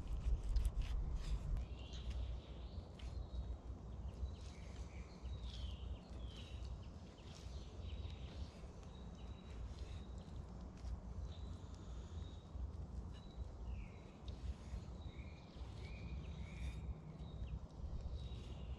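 Knife slicing raw meat on a tree-stump chopping block, the blade tapping the wood in sharp clicks, most of them in the first couple of seconds. Small birds chirp again and again in short gliding calls, over a low steady rumble.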